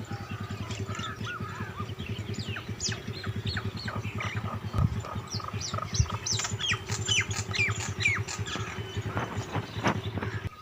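Many birds chirping and squawking in quick, overlapping calls, busiest in the second half, over a steady low hum.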